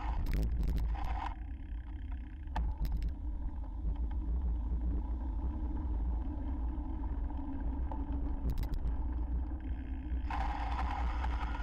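Steady low rumble of wind and road noise on a bicycle-mounted camera riding over a wet street, with a few brief sharp rattles.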